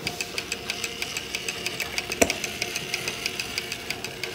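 Brass chiming clock movement running on a test stand, its escapement ticking in an even, quick train of clicks, with one louder click about two seconds in.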